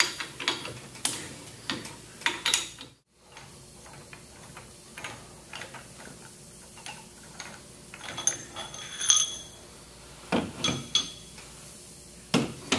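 Ratchet and socket clicking as the stainless steel pump-head bolts are loosened, then metal clinks with brief ringing as bolts and head parts are handled and set down. Two heavier knocks come near the end.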